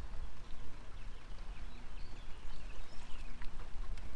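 Open-water ambience around a small boat: an uneven low rumble of wind and lapping water, with a few faint high bird chirps.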